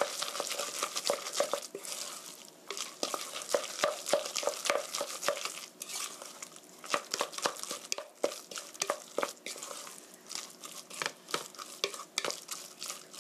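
Wooden spatula stirring a thick, sticky ground-meat, egg and vegetable batter in a stainless steel bowl: irregular knocks and scrapes of wood on steel, several a second, with wet mixing noise. The batter is being worked with flour to stiffen it.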